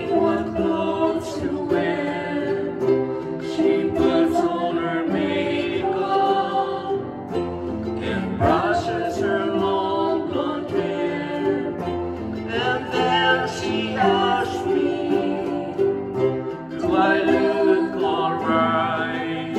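Two ukuleles strummed with an upright piano accompanying, under a sung vocal line.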